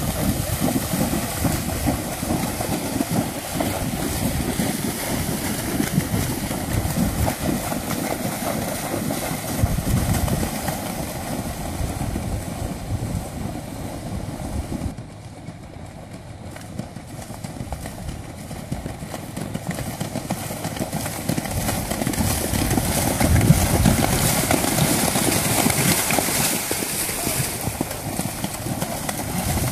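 Friesian horses splashing through shallow lake water, their hooves churning and spraying the water. The sound drops quieter for a few seconds about halfway through.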